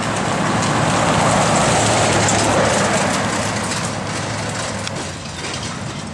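Heavy truck hauling a lowboy trailer drives past, its engine drone and road noise swelling to a peak about two seconds in and then fading.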